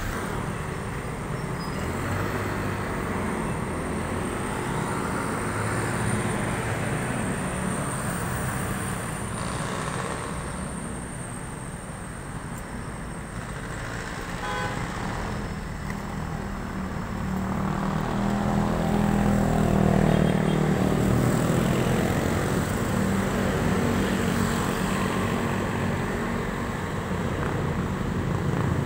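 Road traffic running steadily, with one vehicle's engine growing louder and passing by about two-thirds of the way through.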